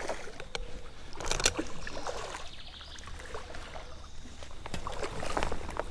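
Water splashing and trickling as a hooked smallmouth bass thrashes at the surface while being drawn in to the net, with a few sharper splashes about a second and a half in and again near the end.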